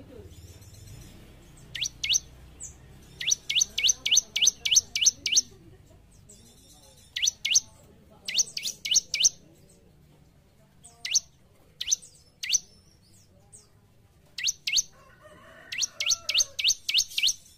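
Bar-winged prinia (ciblek) singing: sharp, high upward-sweeping chirps, some in quick runs of eight or more, others single, with short pauses between the phrases.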